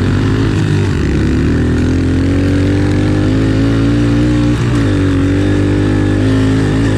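Honda CRF110F pit bike's small single-cylinder four-stroke engine pulling under throttle while being ridden. Its pitch climbs gradually, drops sharply for a moment about two-thirds of the way through, as at a gear change or a throttle chop, then climbs again.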